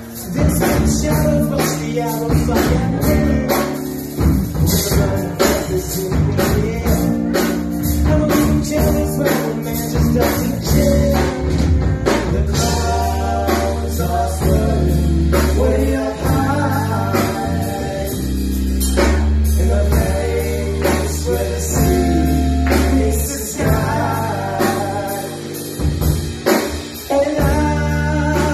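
Live rock band playing: electric guitar, bass guitar and drums, with a singer's voice over the band.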